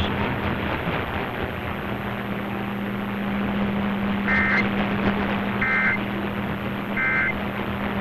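AM radio reception: steady static hiss with a low hum. Three short, high beeps sound about a second and a half apart in the second half.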